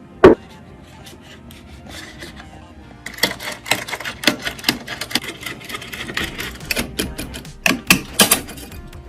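Rapid clicks and taps of computer hardware being handled and fitted together, thickening into a dense run about three seconds in, with a few louder snaps near the end.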